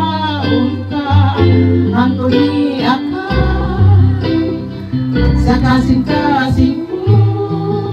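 A woman singing into a microphone over instrumental backing music, her voice wavering with vibrato on held notes.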